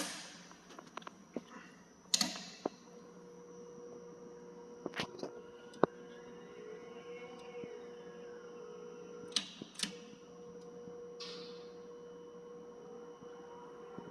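Welding turning roller's electric drive running with a steady hum, which sets in about three seconds in, with several sharp clicks and knocks scattered through.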